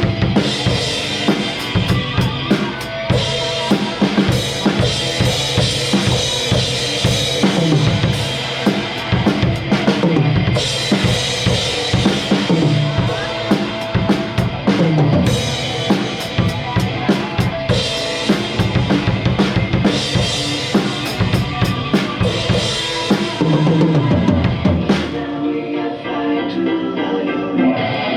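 Rock drum kit played through a song, with kick drum, snare and cymbals over pitched bass and other instruments. About 25 seconds in the cymbals and drums drop out briefly while the other instruments carry on.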